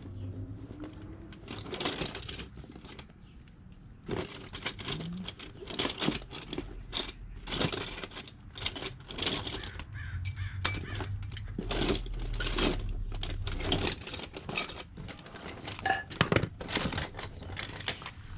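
Metal hand tools clinking and rattling, a 13 mm wrench or socket being handled: irregular sharp taps and clatter throughout, with no steady rhythm.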